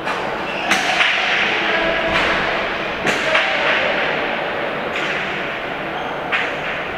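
Hard pelota ball struck and bounced during a remonte rally: about five sharp knocks as it hits the fronton walls and floor and is caught and slung from the players' wicker baskets, over steady background noise of the hall.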